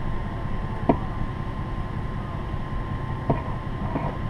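Idling vehicle engine with a steady low rumble and a thin steady hum, broken by three short sharp clicks: about a second in, at about three seconds and near the end.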